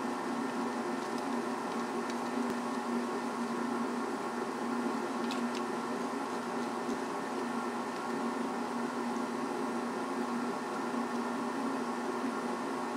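Steady machine hum in the workshop, holding one even pitch throughout, with a couple of faint clicks from the parts of an opened refrigerator compressor being handled and pulled apart.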